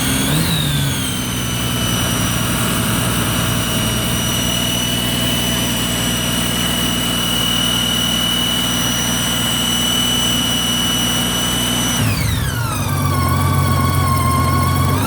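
2008 Honda GL1800 Gold Wing's flat-six engine held at raised revs for about twelve seconds, then dropping back to idle and rising again at the very end, with a high whine that climbs and falls in pitch along with engine speed. The whine is what the owner takes for alternator whine.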